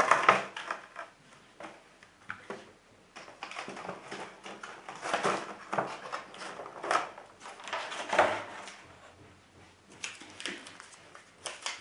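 Packaging being handled as the kit is unpacked: irregular rustling, scraping and light knocks, loudest right at the start.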